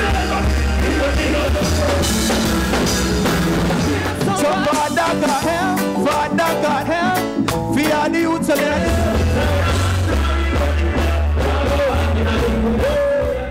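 Live band music with a man singing into a microphone over a heavy bass line. The bass drops out for a few seconds in the middle, then comes back.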